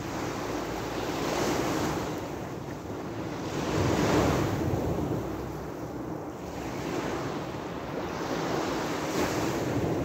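Small sea waves breaking and washing up a pebble beach, the wash swelling and ebbing every few seconds, the biggest surge about four seconds in, with some wind on the microphone.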